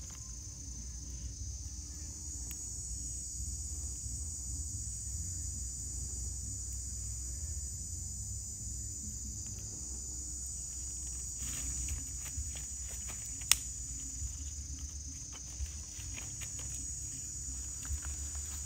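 A steady, high-pitched chorus of insects. In the second half, short crackles and snaps of dry twigs being pushed into a small wood fire, one sharp snap standing out.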